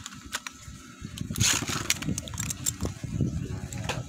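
Metal Fight Beyblade being launched with a ripcord launcher, a short zip about a second and a half in. The top then lands and spins in the stadium dish, with scattered clicks.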